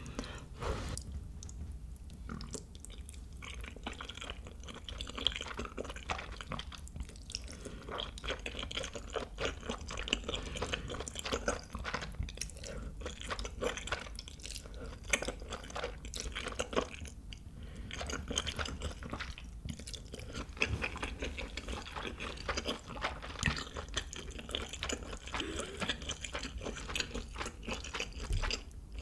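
Close-miked eating of saucy spaghetti and chewy rice cakes with chopsticks: irregular wet chewing, smacking and slurping of noodles.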